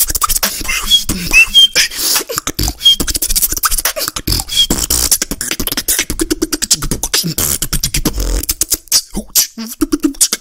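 Solo human beatboxing: a fast run of mouth-made kicks, snares and clicks, with short high squeaky chirps in the first half and brief low hummed bass notes in the second half.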